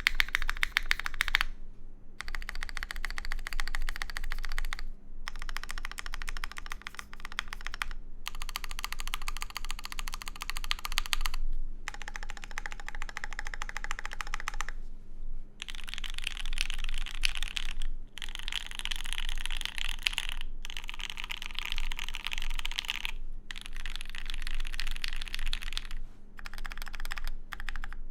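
Fast typing on a Duck Orion v3 custom mechanical keyboard with lubed H1 switches on a PC plate: dense runs of key clacks, with brief pauses every three seconds or so.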